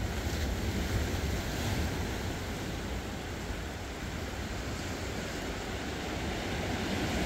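Steady rush of ocean surf breaking and washing over a rocky shoreline, with some wind noise on the microphone.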